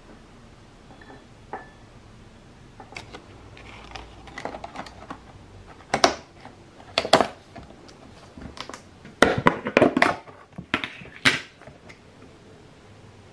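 Handling of plastic ice cream tubs and a metal spoon: a spoon clinking on a bowl, then a series of sharp plastic clicks and knocks as a lid is pressed onto a tub, the loudest cluster a little past the middle.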